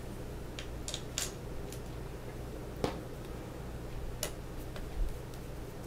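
Hand screwdriver turning the last screw into a plastic heated-blanket controller housing: scattered light clicks and ticks of the tool and plastic, the sharpest about three and four seconds in.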